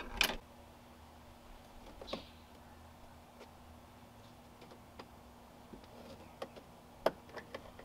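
Scattered light clicks and ticks of a small flathead screwdriver prying the plastic caps off a Ram 1500's driver's side A-pillar trim to reach the 10 mm screws, with sharper clicks near the start and about seven seconds in.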